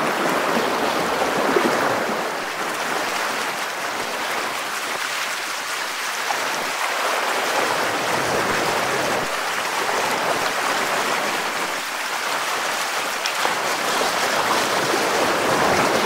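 Fast, shallow river current rushing and splashing around a wading angler's legs: a steady rush of water with no break.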